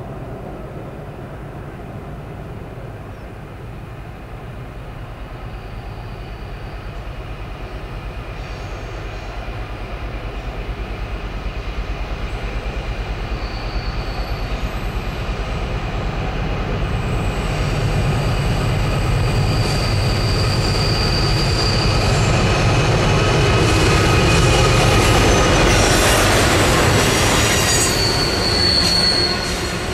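An NR class diesel-electric locomotive hauling the Indian Pacific passenger train, its engine growing steadily louder as it approaches. The stainless-steel carriages then roll past with wheels squealing on the curve. The sound is loudest about three-quarters of the way in and falls off just before the end.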